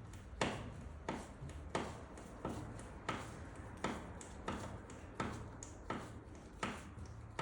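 A steady run of sharp, evenly spaced clicks, about three every two seconds, each with a short ringing tail.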